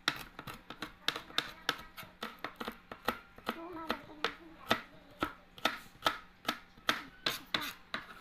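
A broad-bladed kitchen knife chopping garlic cloves on a plastic cutting board: steady sharp knocks about three a second as the garlic is minced.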